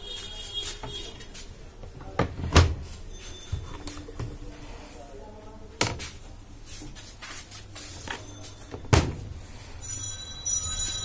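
The plastic lid and body of a top-loading washing machine being handled: a series of sharp knocks and thunks, the loudest about two and a half seconds in. Near the end comes a run of high electronic beeps.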